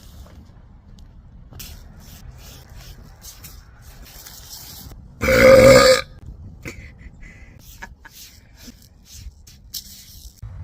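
One loud, deep burp lasting under a second, about five seconds in, brought up by the gas from gulping a bottle of Sprite.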